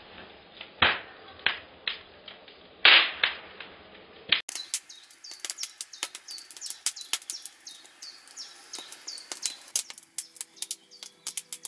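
Wood campfire crackling and popping as it throws sparks, with two loud sharp pops in the first few seconds. After about four seconds it becomes a quick run of fine crackles.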